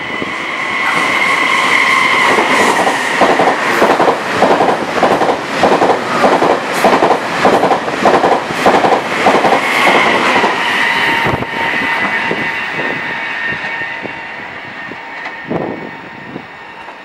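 Passenger train passing through the station at speed. A steady high whine comes first, then a rhythmic clatter of wheels over the rail joints, about two to three clacks a second, which fades as the last cars go by.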